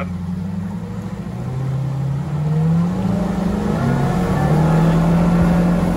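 New Mercury Pro XS 4.6-litre V8 outboard running with the boat under way, at part throttle while it is run in. About a second and a half in its revs rise smoothly as the throttle is eased open, then hold steady and louder.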